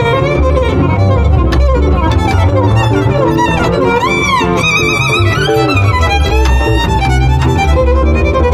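Jazz violin improvising over acoustic archtop guitar and upright double bass. The violin line slides and bends, swoops up and back down about four seconds in, then holds a note with wide vibrato, while the bass keeps a steady walking line underneath.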